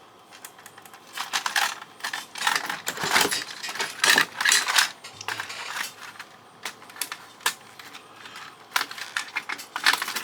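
Small hard metal and plastic fax-machine parts clicking and clattering as they are handled and taken apart, in irregular bursts of clicks, busiest from about a second to five seconds in and again near the end.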